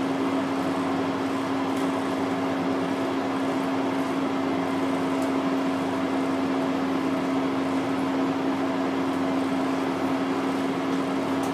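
Steady hum and hiss of room ventilation, a constant low drone that does not change.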